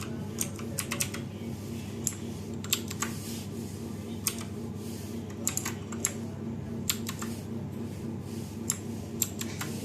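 Keys of a Diamond Star gaming keyboard being pressed: separate sharp clicks at irregular intervals, sometimes two or three in quick succession, over a steady low hum.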